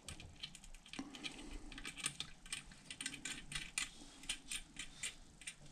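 Faint, quick, irregular metallic clicks and ticks of a cut-down spoke and brass nipple being fitted and wound into a spoke hole of a carbon rim, coming thicker from about two seconds in.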